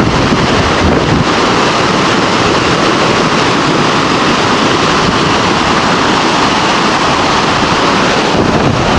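Open sea rushing and splashing along the bow of a tall ship under way, a loud steady wash of water, with wind buffeting the microphone.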